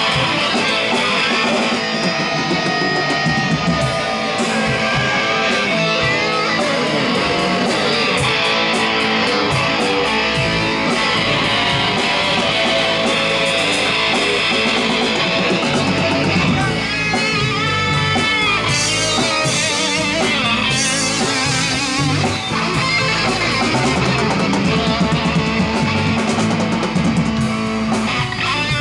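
Live rock band jamming: electric guitar playing over drums and bass, loud and unbroken.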